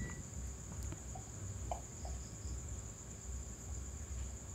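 Crickets chirring steadily in the background, a high even trill. At the very start a multimeter's continuity buzzer, beeping for a shorted output diode, cuts off. A few faint clicks follow about a second or two in.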